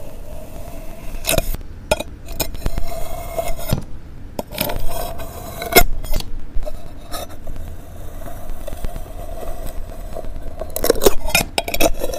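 Kinetic sand being cut and scraped with a flat tool against a glass dish: grainy scraping with crackles and sharp clicks, the loudest crunches about six seconds in and again near eleven seconds.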